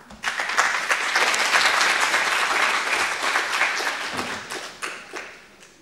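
Audience applauding: it starts abruptly, holds for about four seconds, then thins out and dies away near the end.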